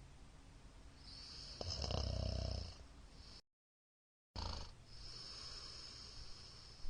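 A middle-aged man snoring in his sleep: one loud, fluttering snore about two seconds in, then quieter breathing. The audio cuts out completely for about a second in the middle.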